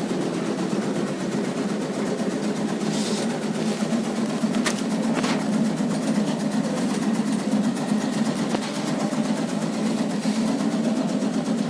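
Motorised tobacco-leaf cutting machine running steadily, its blade chopping in a fast, even rhythm, with two sharp clicks about five seconds in.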